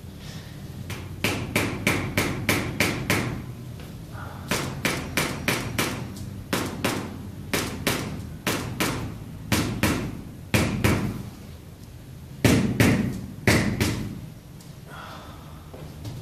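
Runs of sharp strikes on the bare heel and sole of a foot in a heel-spur massage, about three or four blows a second in groups with short pauses between them. The hardest blows come about three-quarters of the way through.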